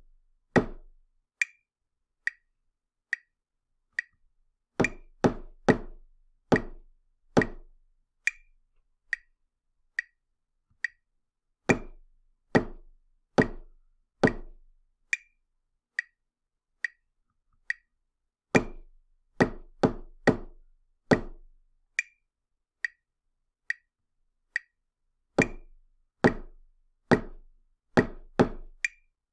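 A steady beat of light, high clicks, a little under one a second, runs under sharp percussive hits that play short rhythm patterns: one hit for each quarter note, two quick hits for each pair of eighth notes. Each pattern of hits lasts four beats and is followed by four beats of the clicks alone, leaving room to echo it.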